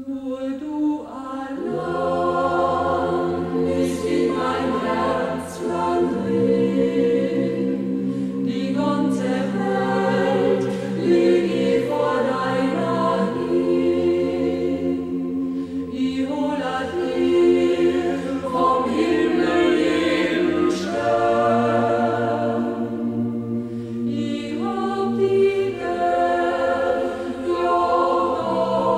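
Carinthian double sextet, a mixed choir of men and women, singing a Carinthian song a cappella in close harmony. The singing runs in long held chords, phrase after phrase, with short breaks between the phrases.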